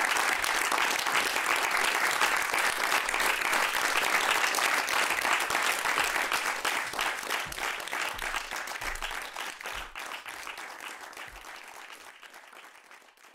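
An audience applauding: many people clapping together in a dense, steady patter that gradually dies away over the second half.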